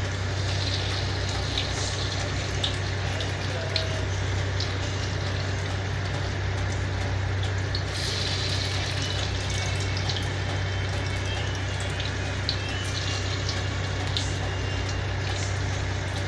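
Vegetable fritter batter frying in a wok of hot oil: a steady sizzle and bubbling as spoonfuls go in, with light clicks of the metal spoon on the pan. A steady low hum runs underneath.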